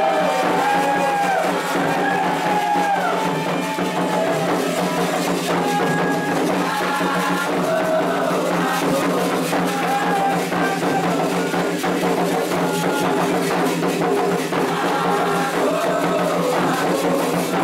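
Candomblé ritual music: voices singing a chant calling the voduns over steady atabaque drumming.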